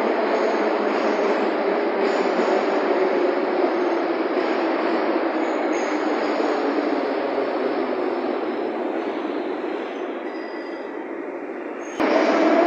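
Metro train noise on an underground station platform: a steady rumble with a low drawn-out tone that fades over the last few seconds, then is abruptly replaced by louder noise near the end.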